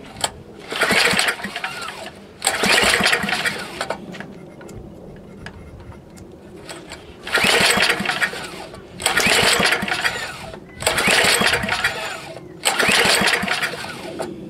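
Tecumseh HS40 four-horsepower engine being pull-started by its recoil rope six times, each pull a loud burst of cranking lasting about a second and a half. It turns over without catching, which the owner puts down to a float that is probably stuck and is keeping gas out of the carburetor bowl.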